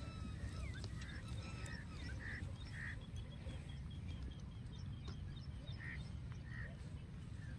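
Birds calling: a few short, separate calls spaced a second or more apart, with some thin gliding whistles early on, over a steady low rumble.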